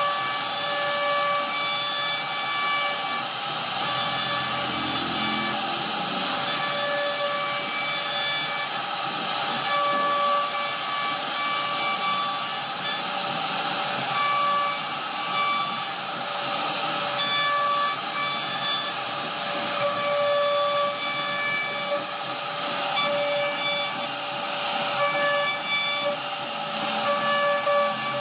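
CNC router spindle carving a relief pattern into a wooden board: a steady whine at several fixed pitches over the hiss of the bit cutting through the wood.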